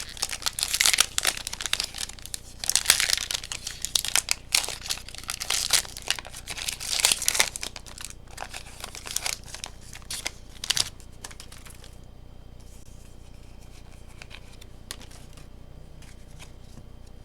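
Foil Pokémon booster pack wrapper being torn open and crinkled, a dense run of rustling and tearing for about eleven seconds that then stops, leaving a faint background hum.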